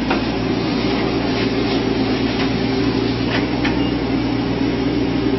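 A large engine running steadily at an even pitch, with a few faint clicks over it.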